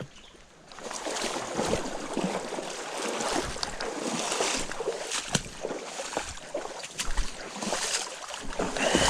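Rushing creek water with crackling splashes, starting suddenly about a second in.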